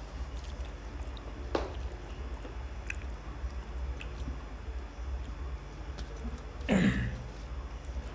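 Eating with the hands from steel plates: fingers mixing and scooping rice, chewing and small clicks against the plates, over a steady low hum. A sharp click about a second and a half in and a short, louder burst of sound near the end.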